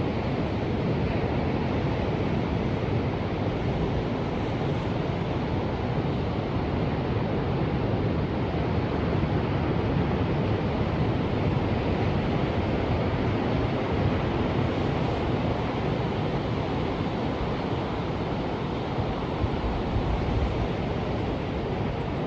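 Ocean surf: a steady, even rushing wash of waves with no distinct single breakers standing out.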